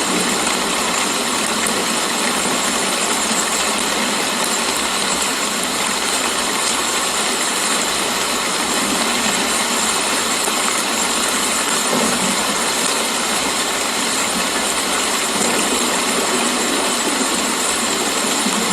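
Steady rain falling, an even dense hiss with faint scattered patters.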